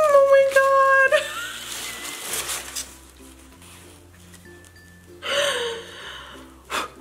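A woman's long, high-pitched squeal of delight that breaks off about a second in, followed by breathy gasps and another short squeal about five seconds in, over soft background music. A sharp tap comes just before the end.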